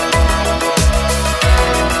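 Background music with a steady, deep beat: low drum hits whose pitch drops, about three every two seconds, under held tones.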